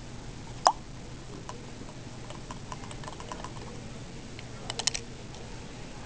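Light clicks and taps from small lab containers and straws being handled, with one sharp plop under a second in and a quick cluster of clicks near the end.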